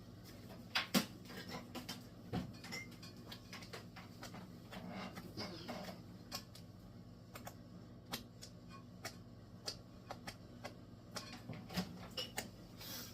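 Thick meat sauce with melted cheese bubbling in a pot, giving irregular sharp pops and spatters, which the cook takes as a sign it is hot and well combined. A faint steady low hum runs underneath.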